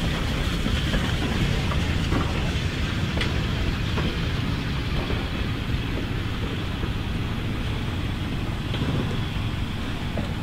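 Passenger coaches of a steam-hauled excursion train rolling past on the rails: a steady rumble with a few sharp wheel clicks, easing off slightly near the end.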